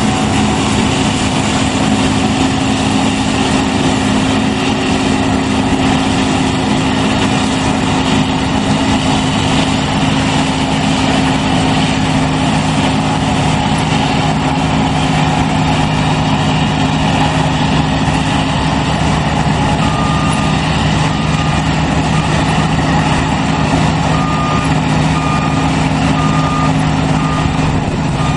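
New Holland CSX 7050 combine harvester running steadily under load while harvesting, engine and threshing machinery droning with a constant hum whose pitch drops partway through. About two-thirds of the way in a reversing alarm starts, one short beep about every second, as the combine backs up.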